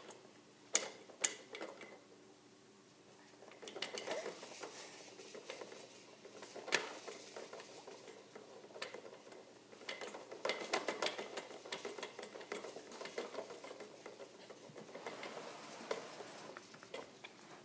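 Plastic baby activity jumper rattling and clicking in uneven bursts as the baby moves and bounces in it, with a few sharp clicks among the clatter of its plastic parts and toys.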